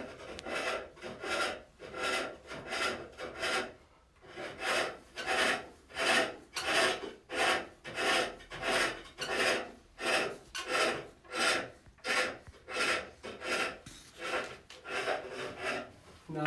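Pole lathe turning: a hand tool cutting into the spinning wooden box blank on each treadle stroke, a rhythmic shaving hiss about one and a half times a second. It breaks off briefly about four seconds in, then goes on steadily.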